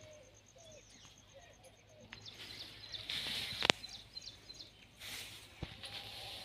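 Birds chirping, with a fast high trill during the first two seconds. A single sharp click comes a little past halfway.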